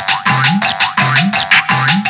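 Samsung SGH-X610 polyphonic ringtone playing: a synthesized electronic tune built on a rising bass 'boing' that repeats about twice a second, with short bright notes above it.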